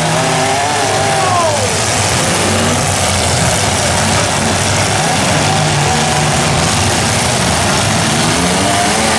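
Several demolition derby cars' engines running hard over a dense, steady wash of noise, with one engine revving up and dropping away about a second and a half in.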